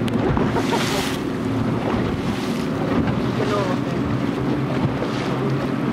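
Rigid inflatable boat running over choppy sea: the steady drone of its engine under wind buffeting the microphone. Water hisses and slaps against the hull in several bursts.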